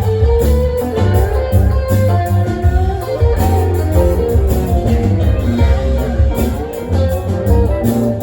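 Live band playing: guitar over a heavy bass line with a steady beat.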